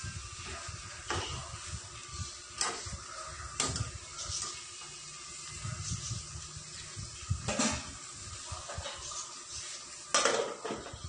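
Kitchen clatter: about five separate knocks and clinks of utensils against pots and dishes, the loudest near the end, over a low steady rumble.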